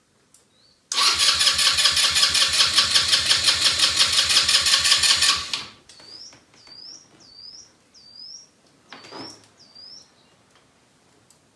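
Electric starter cranking a 150cc quad bike engine for about four and a half seconds in a fast, even rhythm without it catching, then stopping. Afterwards a bird chirps about seven times in quick short calls.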